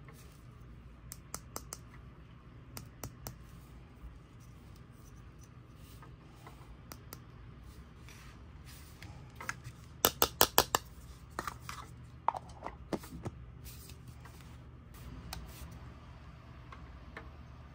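Hard plastic toy figure and capsule being handled: light clicks and taps, with a quick run of about half a dozen sharper clicks about ten seconds in. A low steady hum runs underneath.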